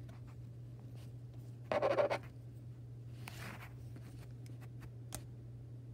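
Rubber loom bands and a plastic loom hook handled close to the microphone, scratching and rubbing in two short bursts, with a few faint clicks, over a steady low hum.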